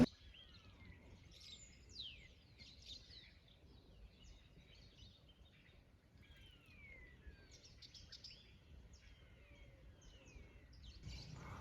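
Faint birdsong: many small birds chirping, short falling chirps overlapping one another, with a soft rushing hiss coming up near the end.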